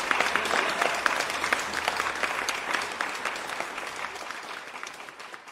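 Applause, many hands clapping, fading out steadily toward the end.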